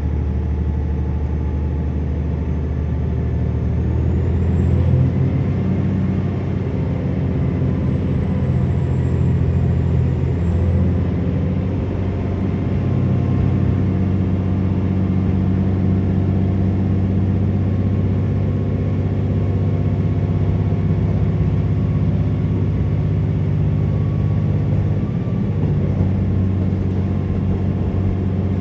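KiHa 47 diesel railcar's engine running, heard from inside the passenger cabin as a steady drone with rail and running noise. Its pitch shifts about four seconds in and again around ten seconds in.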